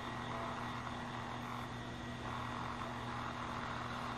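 Steady even hiss with a low electrical hum underneath, unchanging.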